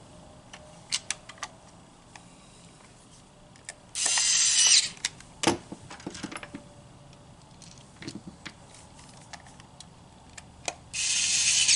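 Small cordless electric screwdriver whirring in two short bursts, about four seconds in and again near the end, driving a screw into a plastic toy remote's case. Light clicks and handling knocks come between the bursts.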